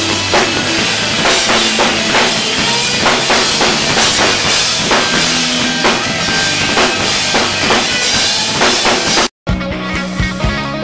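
Live rock band playing loudly: a drum kit driving a steady beat under guitar. About nine seconds in, the sound cuts out completely for a moment, then the music picks up again.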